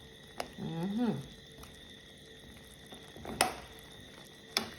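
A few sharp taps of a utensil against a cooking pot, three in all with the loudest a little past the middle, over a faint steady hiss.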